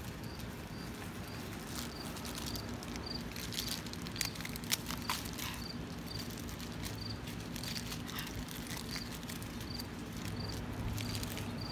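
An insect chirping at an even pace, about two short high chirps a second, over faint outdoor background noise. A few scattered clicks and taps come through, the sharpest a little before the middle.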